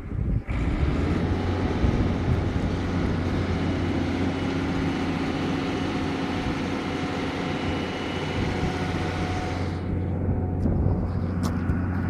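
Diesel engine of a large tracked rock drill rig running hard while the machine drives onto a low-loader trailer, with a steady low hum and a broad hiss. About ten seconds in the hiss drops away and the engine settles to a lower running sound.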